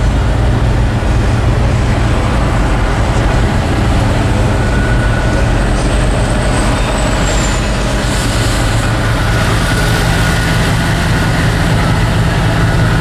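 Steady engine hum and road noise inside a moving pickup truck's cab.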